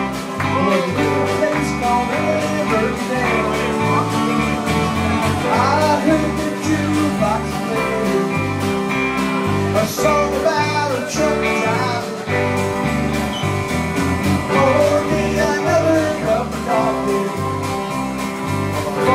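Live country band playing: electric guitars and electric bass over drums, with a steady beat and a walking bass line.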